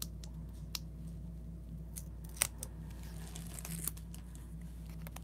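Paper handling: a few light clicks and taps as small die-cut cardstock pieces are picked up and pressed onto a card, the sharpest about two and a half seconds in, with a brief paper rustle near the end, over a faint steady hum.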